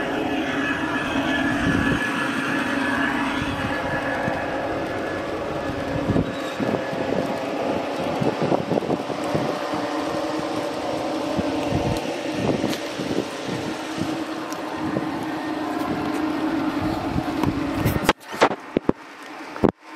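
G-scale garden railway train running along its track: a steady mechanical hum with irregular clicks, stopping abruptly near the end.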